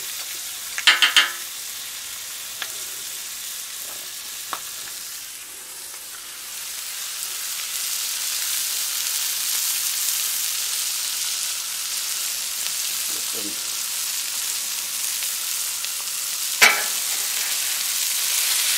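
Hot links and a tater-tot hash with onion and bell pepper sizzling on a hot flat-top griddle, the sizzle swelling louder about a third of the way through. A metal spatula clanks on the griddle plate in a quick run of three or so near the start and once sharply near the end.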